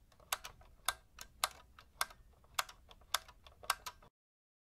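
Faint, sharp clicks at irregular spacing, roughly two a second, that stop abruptly about four seconds in.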